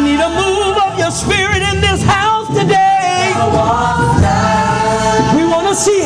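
Woman singing a gospel praise song into a handheld microphone, drawing out wordless held notes with a wide vibrato.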